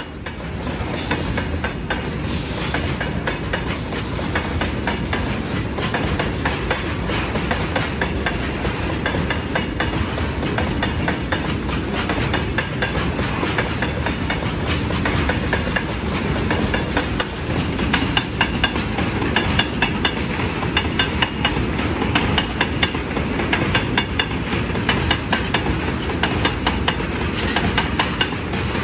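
Indian Railways goods train of petrol tank wagons running on the track, its wheels clattering steadily over the rail joints.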